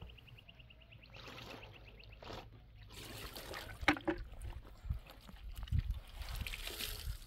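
Water trickling and splashing back into a metal washbasin in several bursts as a wet garment is wrung out by hand, with one sharp tap about four seconds in.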